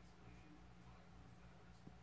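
Near silence: faint room tone with a low steady hum, and one small faint click near the end.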